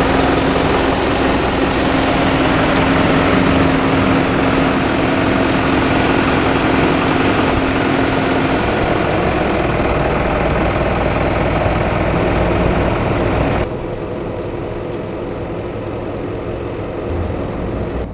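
A motor vehicle's engine running steadily, with a held hum through the first half; the sound drops suddenly about 14 seconds in.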